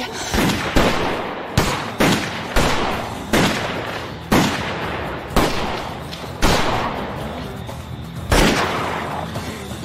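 Gunshots, about ten at irregular intervals, each sharp crack trailing off in an echo, over background music.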